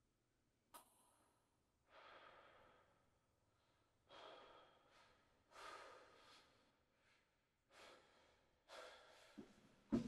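Near silence broken by a woman's faint, slow breaths, about one every second and a half, with a short click a little under a second in.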